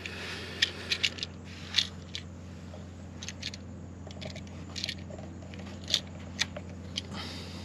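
Scattered small clicks and scrapes as a GFCI receptacle and its wires are handled, a copper wire being worked onto a terminal screw.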